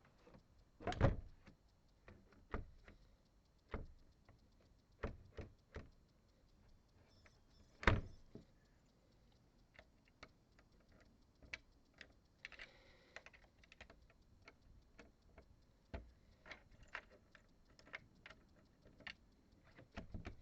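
A newly fitted workshop door lock and door being worked: scattered light clicks and clunks of the latch and door. Two louder knocks come about a second in and again near eight seconds.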